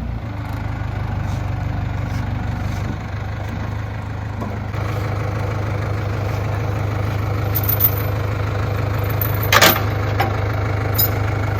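A vehicle engine idling steadily, with several sharp clinks and knocks in the second half as a log is hooked up to be dragged.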